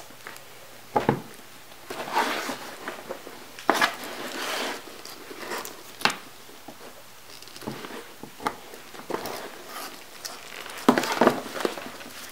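Hands working small craft parts at a table: scattered sharp clicks and light knocks, with two stretches of rustling.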